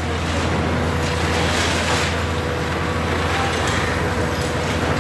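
Hitachi Zaxis 350 high-reach demolition excavator's diesel engine running steadily, a low drone with a thin steady whine over it.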